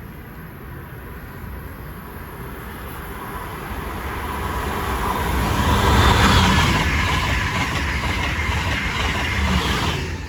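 Passenger train passing: a steady rush of wheels on rail that builds over the first few seconds to its loudest about six seconds in, then drops off sharply near the end.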